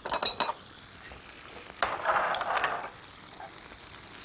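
Apple and onion slices and pike-perch fillets sizzling in butter in two frying pans, with a steady high hiss. A fork and wooden spatula stir and scrape in one pan, with a few sharp clacks right at the start and a louder scrape about two seconds in.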